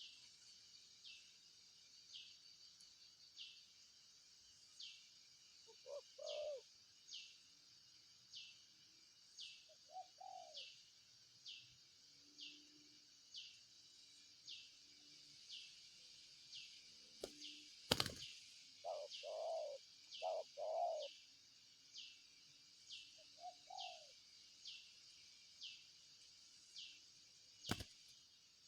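Spotted dove cooing in short, low phrases several times, faint, over a thin high falling chirp that repeats about once a second. Two sharp clicks, one a little past the middle and one near the end.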